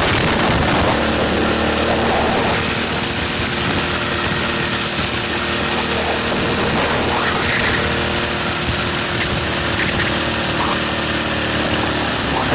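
Buggy engine running loud and steady while the buggy is driven, heard from the driver's seat, its pitch holding fairly even, with a steady high hiss over it.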